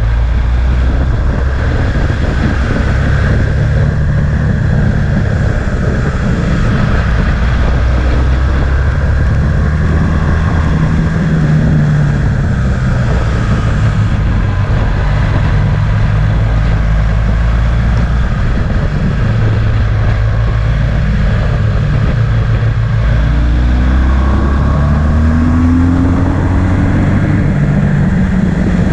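Motorcycle engine running at speed along a winding road, its pitch shifting up and down with the throttle through the bends and rising a few times near the end, over steady wind rush.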